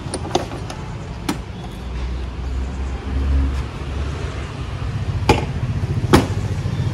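Electric scooter's seat lid being lowered and pressed down to lock, shutting with a sharp click near the end, after a few lighter clicks from handling the controls in the boot. A low steady rumble runs underneath.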